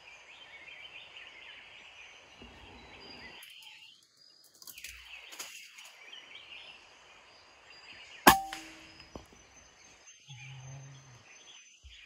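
A single shot from a PCP air rifle about eight seconds in: one sharp crack with a brief ringing tail, over a steady high background hiss.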